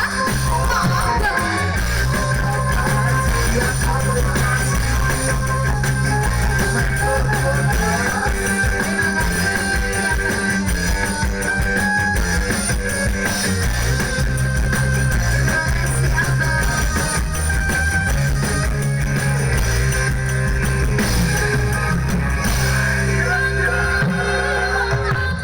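Live dangdut koplo band music, loud and continuous, with drums, bass and guitar.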